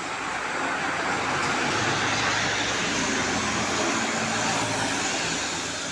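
A road vehicle passing on a wet road: engine hum and tyre hiss swell over about two seconds, hold, then fade.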